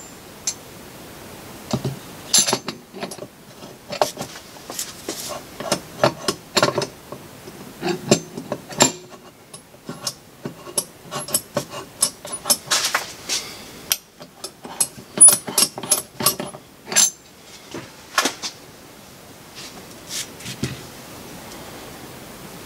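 Metal turbocharger parts being handled and knocked together: the turbine housing, its variable-geometry vane ring and the centre section clicking, clinking and scraping as the housing is fitted on and lifted off again. The parts will not seat because the vane ring's pins do not line up. The irregular clicks and knocks thin out over the last few seconds.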